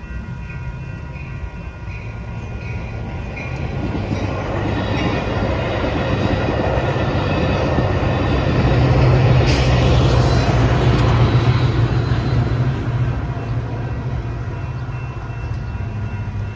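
A Metra commuter train of bilevel cars passing over the grade crossing, its rumble and wheel clatter building to a peak about halfway through and then easing off. Over it, the crossing's electronic bells ring steadily.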